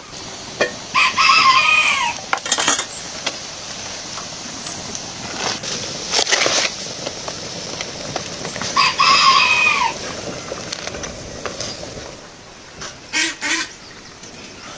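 A rooster crowing twice, about eight seconds apart, each crow lasting about a second. Between the crows come a few sharp clinks and knocks of metal cookware.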